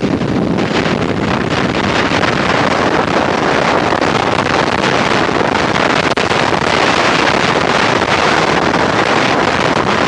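Strong storm wind blasting the camcorder microphone, a loud, steady rush of noise with no pauses.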